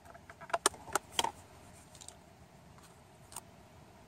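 A handful of small clicks and taps from craft tools and card being handled and set down on a wooden table, bunched in the first second and a half, with one more a little after three seconds.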